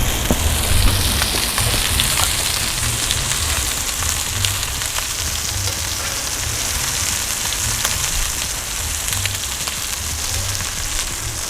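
Meatballs sizzling as they brown in hot oil in a skillet over a charcoal grill: a steady frying hiss with a few faint clicks, over a low rumble.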